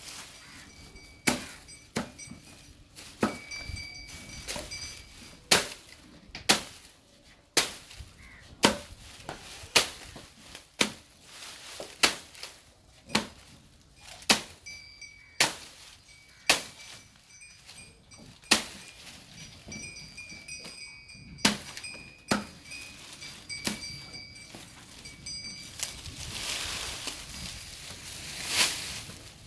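Desi bull grazing, tearing off grass with a sharp snap at each bite, about one a second, with a longer rustling stretch near the end.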